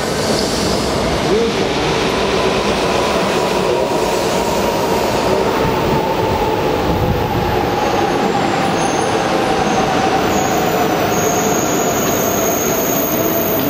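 E4 series double-decker Shinkansen pulling slowly into a station platform: a steady rumble of the cars rolling past, with a whine that slowly falls in pitch as the train slows. A thin high squeal joins in from about eight seconds in.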